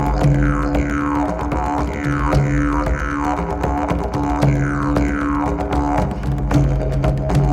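Background music built on a steady low drone, with repeated falling sweeps over it and light percussive ticks.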